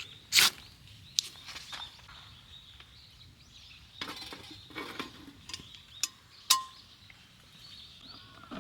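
Several sharp clinks and knocks at irregular intervals, the loudest about half a second in and another near the end, with small birds chirping in the background.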